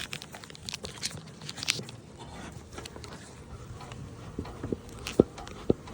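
Scattered light clicks and taps of beehive equipment being handled, with two sharper knocks near the end.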